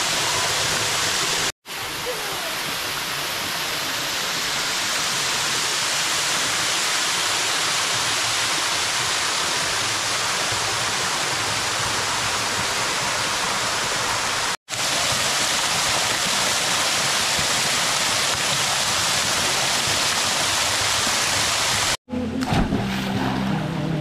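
Steady rush of a waterfall pouring into a rock pool, cut off abruptly twice. Near the end it gives way to quieter water sounds with voices.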